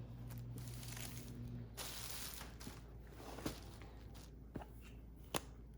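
Faint rustling of clothing and packaging being handled, with a few light clicks, the sharpest near the end. A low steady hum stops a little under two seconds in.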